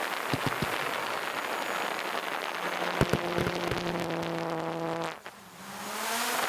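Drone propellers buzzing over a steady hiss; the buzz shifts pitch, drops away about five seconds in, then rises back in a climbing whine. Several sharp cracks of fireworks come in a cluster early on and again around the middle.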